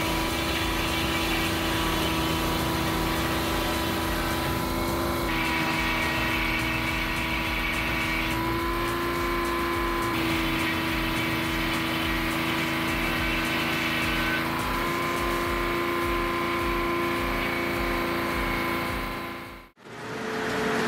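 Log-cutting machine with a large circular saw blade running, a steady whining hum whose pitch shifts slightly a few times. It cuts out briefly near the end.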